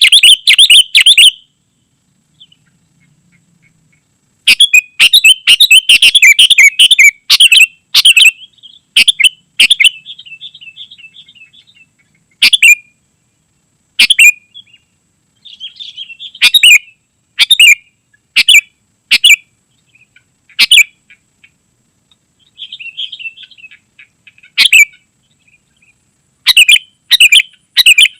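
Sooty-headed bulbul singing vigorously. There are dense runs of loud song at the start and again from about four to eight seconds in, with a silent gap of about three seconds between them. After that come separate short calls roughly once a second, with softer chatter between them.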